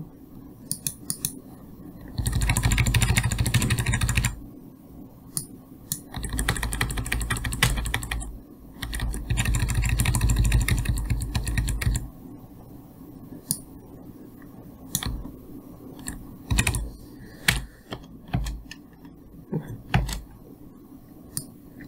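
Computer keyboard keys being pressed: scattered single clicks, and three stretches of rapid clicking lasting two to three seconds each.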